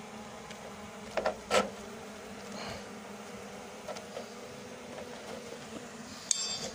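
Honeybees buzzing in a steady hum around an open hive, with a few sharp knocks and scrapes of a knife working comb against the hive box, the loudest about a second and a half in.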